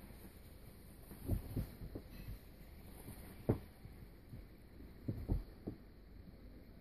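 Scattered soft, low thumps and taps, about seven spread over several seconds, from a baby blue-and-gold macaw shifting about on a paper-lined cage floor.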